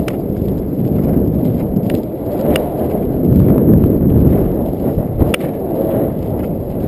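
Polo pony's hooves thudding on turf at speed, under heavy wind rumble on the rider-mounted camera's microphone. There are two sharp knocks, the louder one a little over five seconds in.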